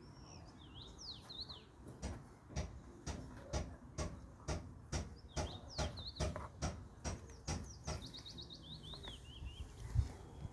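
A small bird chirping in quick, short falling notes, with a steady run of about a dozen knocks, roughly two a second, through the middle of the stretch.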